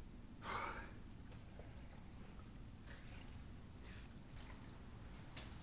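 A short, sharp breath about half a second in, then faint splashes of water in plastic basins as hands and faces are washed.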